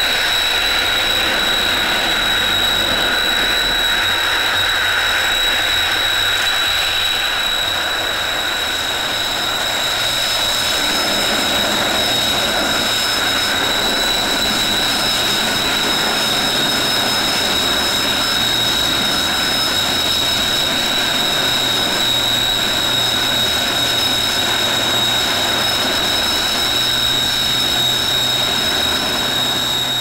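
Kawasaki T-4 jet trainers' turbofan engines running as the jets taxi on the ground: a steady, high-pitched whine over an even rushing engine noise.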